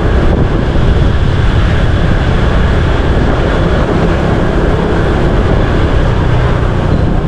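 Wind buffeting the microphone of a moving motorbike, with the bike's engine and road noise running steadily underneath.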